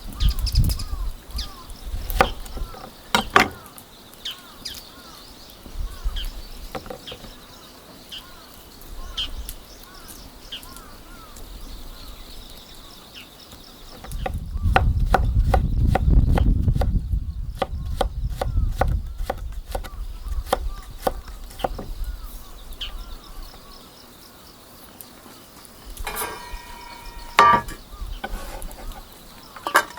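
A wood fire being tended, with scattered sharp cracks and knocks of firewood and a louder stretch of rumbling and crackling about halfway through.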